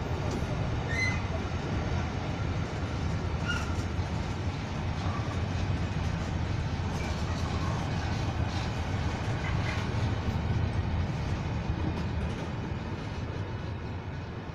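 Freight train of bogie hopper wagons rolling past: a steady rumble of wheels on rail, with a few brief high squeaks from the wheels. It eases slightly near the end as the last wagons go by.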